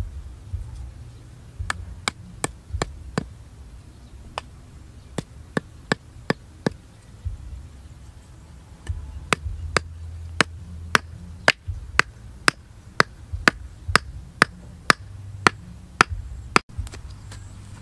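Small hammer knocking bamboo stakes into the ground: sharp, crisp knocks in short scattered runs, then a steady series of about two a second for most of the second half.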